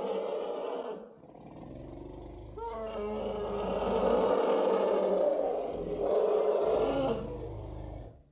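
A large animal roaring in long, deep, rough calls, with a brief drop about a second in and a sudden cut-off at the end.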